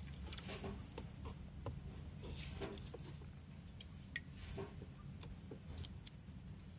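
Light splashing and dripping water with scattered small clicks as a small turtle is handled and lifted out of a shallow plastic tub of water, over a steady low hum.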